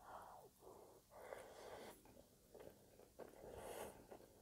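Faint eating sounds: a bite of caramel cinnamon brioche French toast taken off a fork and chewed with the mouth closed, with breathing through the nose and a few small mouth clicks.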